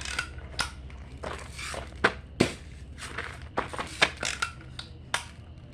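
Irregular sharp clicks and crinkling of something being handled at close range, about a dozen separate clicks with no steady rhythm.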